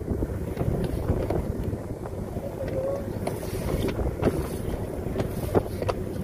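Small open boat under way across choppy water: a steady low rumble of wind buffeting the microphone, broken by several short sharp knocks as the hull meets the waves.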